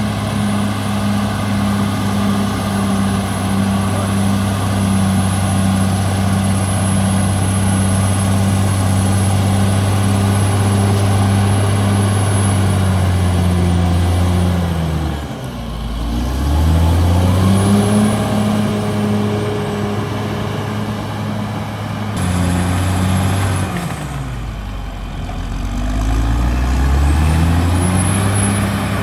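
Cat D6R XL bulldozer's diesel engine running hard and steady. Its pitch sags and climbs back twice, about halfway through and again a few seconds before the end.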